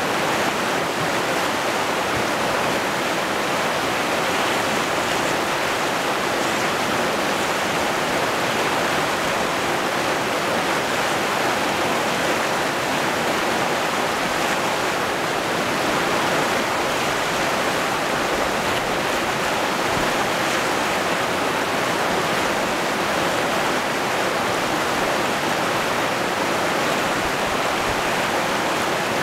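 Fast, muddy river rushing over rapids and boulders: a steady, even roar of white water.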